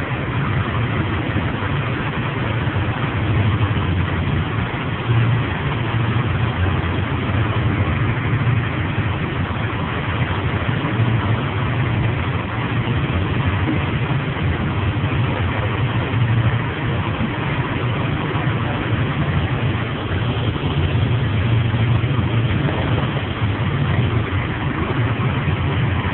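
A steady, loud, low engine-like drone of running machinery, continuous and without breaks.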